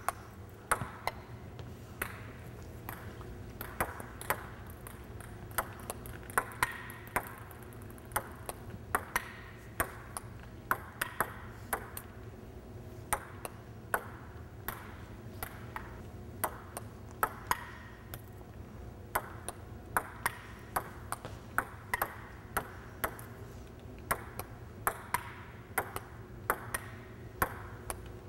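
Table tennis rally: a plastic ball clicking off the rubber-faced bats and bouncing on the table in a steady back-and-forth, about two clicks a second, over a steady low hum.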